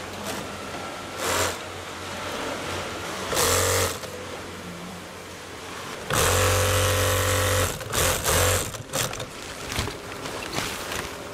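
Industrial sewing machine stitching tent fabric in short runs, starting and stopping several times. The longest run, about six seconds in, lasts about a second and a half. A steady low background hum lies underneath.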